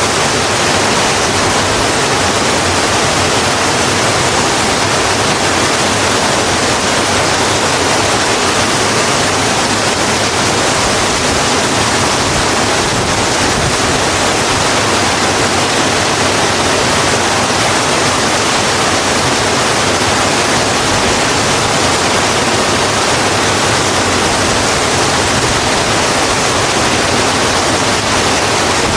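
Steady rain: a dense, even hiss that holds at one level throughout, with no distinct drops, thunder or pauses.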